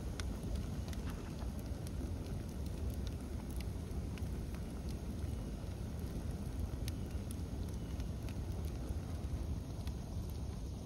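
Burning brush pile crackling, with scattered sharp pops over a steady low rumble.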